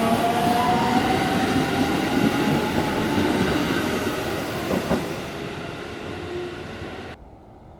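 JR Central 373 series electric train running on the rails and moving away, its wheel and rail noise slowly fading while a faint motor whine rises in pitch. The sound cuts off suddenly near the end.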